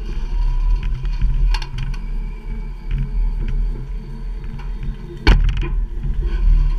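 Tractor engine running as the tractor drives along, with rattles and knocks from the machinery and one sharp, loud clank about five seconds in.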